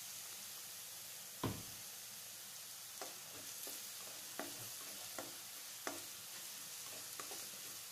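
Chopped shallots sizzling in hot coconut oil in a non-stick kadai, with a spatula stirring them and knocking against the pan about ten times, the loudest knock about a second and a half in.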